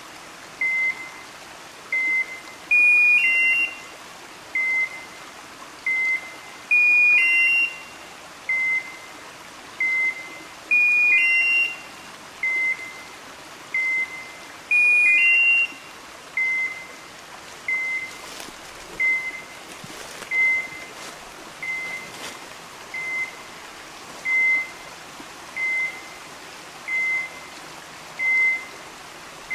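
Electronic beeper collars on hunting dogs: one gives a single high beep about every 1.2 s, the other a louder rising three-note chirp every 4 s that stops about halfway through. The steady, fast beeping is the collars' point-mode signal that the dogs are standing still on point.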